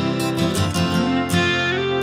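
Background music led by plucked acoustic guitar, notes changing every half second or so over a held bass note.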